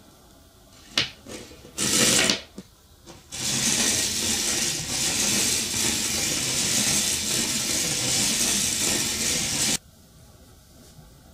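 Homemade electromagnetic train (a 1.5 V alkaline battery with neodymium magnets on both ends) racing through a bare copper wire coil. The magnets rub and rattle against the wire turns with a steady whirring scrape for about six seconds, then stop abruptly. Before that there is a click and a brief burst of the same rattle.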